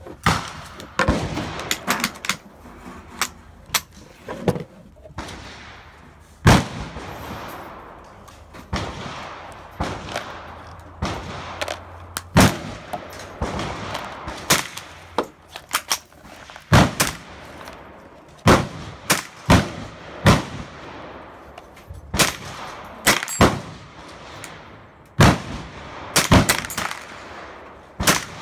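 Gunshots, a couple of dozen sharp cracks fired at irregular spacing, some much louder than others, each trailing off in a short echo.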